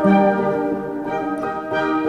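Orchestral background music with sustained, layered instrument notes.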